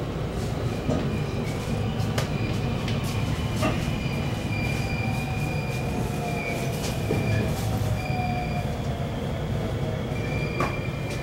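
Cabin running sound of a JR West 223-2500 series electric train slowing into a station: a steady low rumble of wheels on rail with scattered clicks from rail joints, high wheel squeal coming and going, and an IGBT-VVVF motor whine that slowly falls in pitch as the train brakes.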